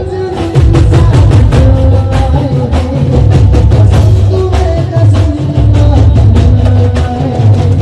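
Song with a heavy drum beat and deep bass under a melody, loud throughout.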